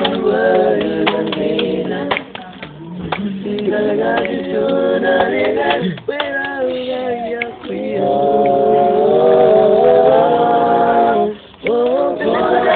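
A group of voices singing together in harmony, with a long held chord in the second half and a brief break near the end.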